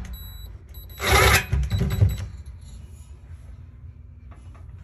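Cordless drill-driver driving a screw into the oven's sheet-metal bottom panel: a faint motor whine at the start, then a loud rasping burst about a second in, followed by a few shorter bursts as the screw seats.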